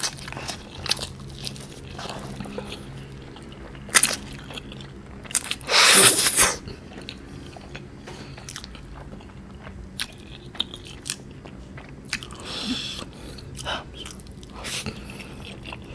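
Close-miked eating of soft, saucy Samyang cream carbonara instant noodles: slurping noodles in and chewing with wet mouth clicks and smacks, loudest about six seconds in.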